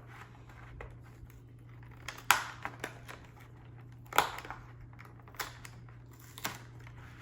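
Packaging being handled and opened by hand: scattered crinkles and a few sharp clicks, over a steady low hum.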